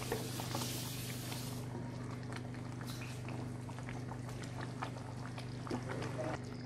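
Chicken curry gravy simmering and bubbling in a non-stick kadai while a wooden spatula stirs it: a wet swishing and scraping for the first second or so, then scattered small pops and taps. A steady low hum runs underneath.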